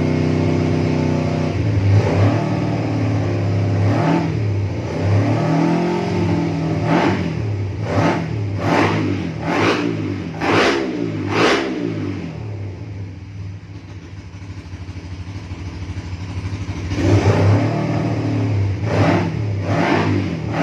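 Suzuki Satria F150 fuel-injected single-cylinder four-stroke engine, stock 62 mm bore, being revved in the stand: pitch repeatedly rising and falling, with a run of quick sharp throttle blips about two a second in the middle. It settles back to a quieter idle for a few seconds, then revs again near the end.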